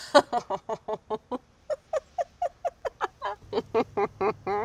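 A woman laughing in a long run of short, high-pitched giggles, about four a second.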